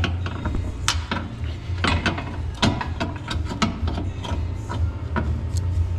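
Hand ratchet wrench clicking in irregular spurts as suspension bolts are worked, over a steady low hum.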